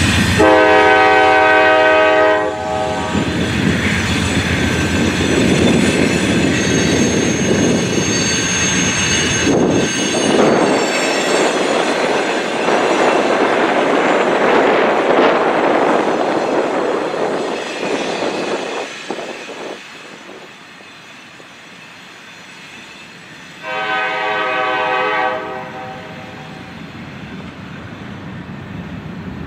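A freight train led by GE diesel locomotives rolling past with continuous wheel and rail noise, its multi-note air horn sounding a chord for about two seconds just after the start and again for about two seconds near the end. The rolling noise eases off about two-thirds of the way through as the locomotives move away, then builds again as hopper cars pass close by.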